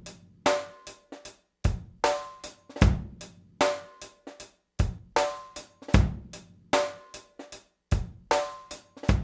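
Intro music: a drum-kit beat of kick, snare and hi-hat hits in a steady rhythm, with a faint ringing tone under it.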